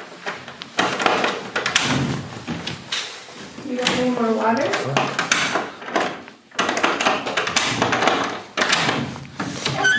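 Metal lever handle of a wooden door being worked over and over, the latch clicking and knocking repeatedly.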